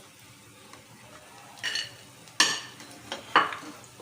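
A metal utensil clinks and scrapes against a cooking pan or dish about four times in the second half, with the last two strikes the loudest, over a faint steady hiss.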